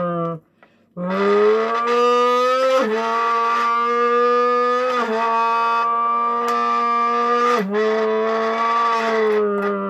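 Mouth-blown buzz through a crushed Red Bull can, imitating a Formula 1 engine at high revs. After a short break about a second in, one steady buzzing note rises and holds. Three quick flicks in pitch, a little under two seconds apart, stand for gear changes.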